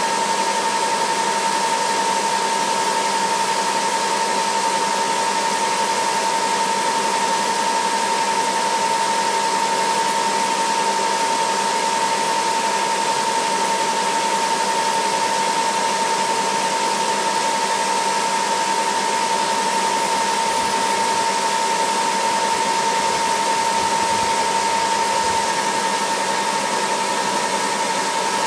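UH-60 Black Hawk helicopter's turbine engines running: a steady high whine over a constant rushing hiss, with no change throughout.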